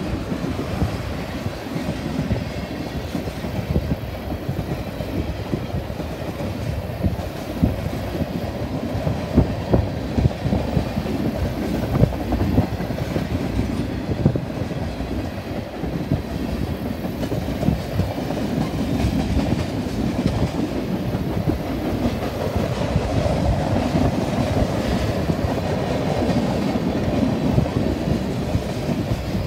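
Freight train tank cars rolling past: a steady rumble of steel wheels on rail, with irregular sharp clicks and knocks as the wheels pass over the rail joints.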